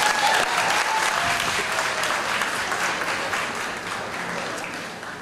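A crowd applauding, with a few shouts near the start; the clapping fades gradually.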